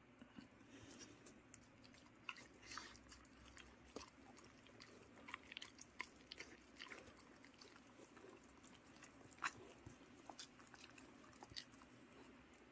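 Two dogs eating soft steamed sweet potato from a hand: faint, irregular wet smacking, chewing and licking, with one sharper click about nine and a half seconds in.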